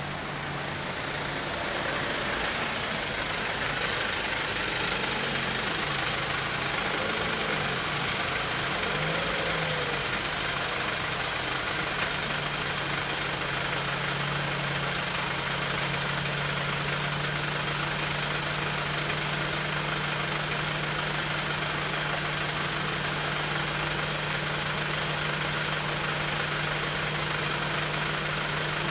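An engine idling steadily: a constant low hum with a broad rumble that swells over the first couple of seconds, then holds level.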